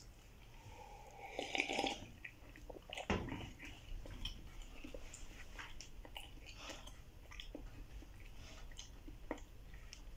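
Close-up eating sounds: a slurping sip of hot coffee from a mug about a second in, a knock as the mug is set down on the table, then chewing of bread with many small wet clicks.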